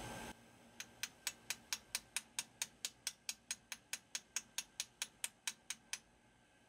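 A fast, even run of sharp high ticks, about five a second, lasting about five seconds over a near-quiet background.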